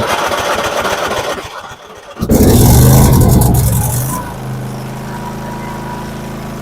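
Kohler engine of a Craftsman YTS4500 riding mower cranked over by its newly fitted electric starter for about two seconds, then catching, revving up briefly and settling to a steady run: the replacement starter has cured the no-start.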